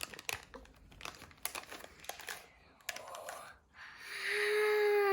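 Plastic packaging crinkling and tearing in short rustling clicks, as a toy is unwrapped. About four seconds in a singing voice starts a long held note.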